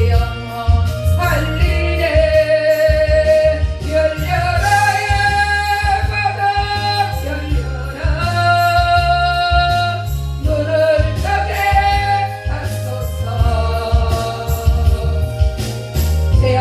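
A gospel song sung with long held notes over a backing track with a steady bass and drum beat.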